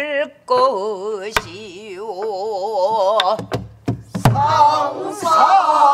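Pansori singing with a wide, slow vibrato, struck through with a few sharp strokes on buk barrel drums. Toward the end several voices sing together.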